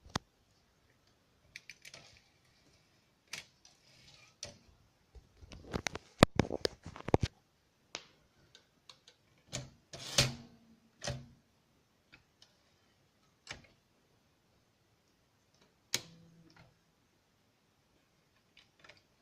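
Olympia SM4 manual typewriter being typed on: scattered single key strikes, a quick run of keystrokes about six seconds in, and a louder, longer mechanical clatter around ten seconds in.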